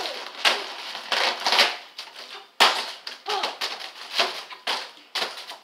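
Foil helium balloons being punched and batted by hand: a string of irregular crinkly slaps, about two a second.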